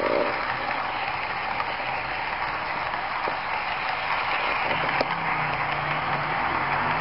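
Model train running on curved track: the steady whir and rattle of the motorised model VT 69 railcar's small motor and gears and its wheels on the rails, with a few sharp clicks about three and five seconds in.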